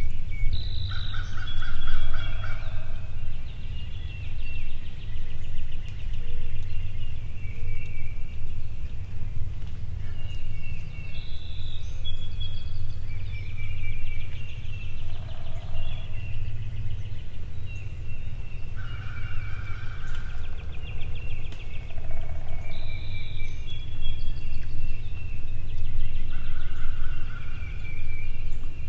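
Eastern wild turkeys gobbling, several rapid rattling calls repeated through the stretch, over a steady low rumble.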